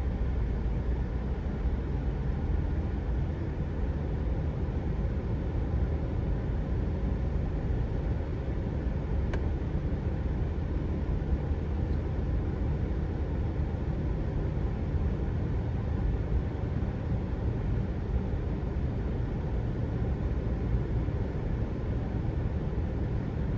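Steady low rumble of a vehicle driving slowly, engine and tyre noise heard from inside the cab, with one faint tick about nine seconds in.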